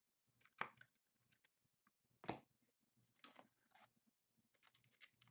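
Faint, scattered rustles and light scrapes of trading cards being handled and slid into plastic card sleeves, the loudest about two seconds in.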